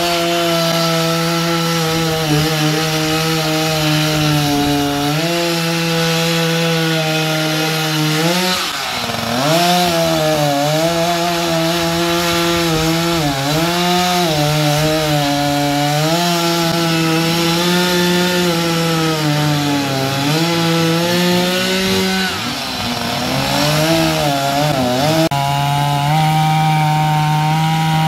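Two-stroke chainsaw running at high revs while cutting through a large log. Its pitch dips and recovers several times as the chain loads up in the wood.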